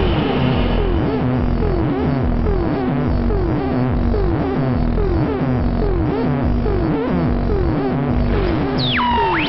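Buchla and Eurorack modular synthesizers playing an electronic soundscape: a falling tone repeats about every 0.8 s over a steady low pulse. Near the end, high gliding tones slide down across it.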